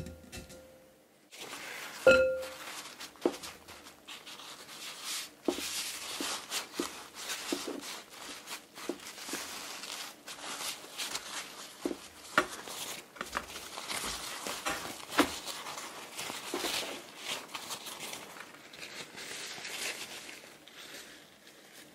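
Paper towel rustling and crinkling as hands press it down on drained cappellini in a stainless steel tray to blot off the water, with many small knocks and clicks against the tray. A single ringing clink about two seconds in.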